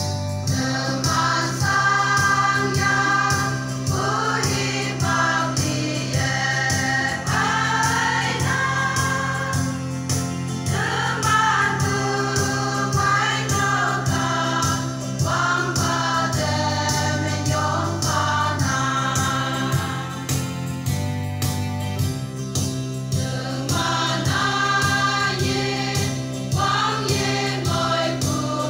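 Women's choir singing a gospel hymn through microphones, in continuous sung phrases over low sustained accompaniment notes that change every few seconds.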